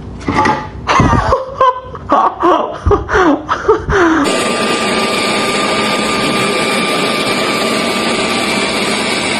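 A leaf blower running at a steady rush with a thin steady whine, starting about four seconds in. Before it, a string of short cries that slide up and down in pitch.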